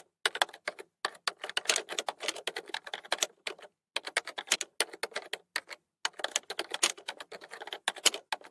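Typing sound effect: rapid keystroke clicks in quick runs broken by short pauses, in step with text being typed out letter by letter.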